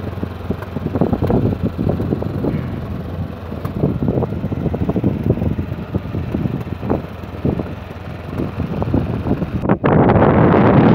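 Motorcycle engine running as it rides, with wind buffeting the microphone. About three-quarters of a second before the end the sound cuts abruptly to a louder, steadier rush of wind noise.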